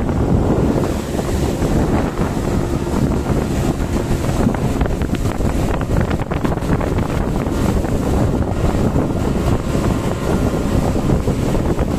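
Wind buffeting the microphone over the steady running noise of a speedboat under way at speed, with the hull pounding through the chop and spray hissing off its side.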